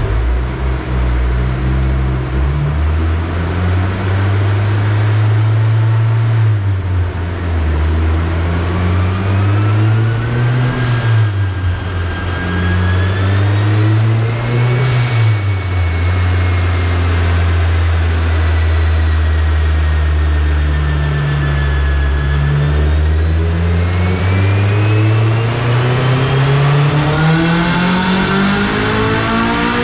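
Turbocharged K20Z3 four-cylinder engine of a 2008 Honda Civic Si running on a chassis dyno, its revs rising and falling, with a high whine that climbs and dips alongside. Near the end the revs climb steadily as a pull begins.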